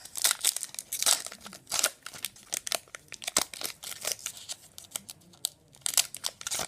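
Crinkling and tearing of a trading-card pack wrapper being opened and handled, a dense run of irregular crackles with the loudest ones about a second in and again near the end.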